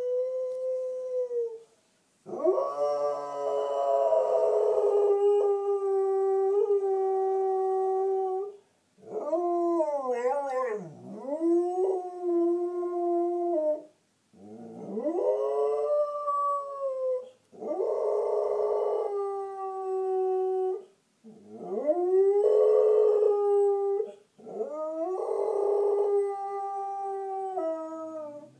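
A dog howling: about seven long howls in a row, each sliding up in pitch and then held steady, with short breaks for breath between them. One howl near the middle wavers up and down.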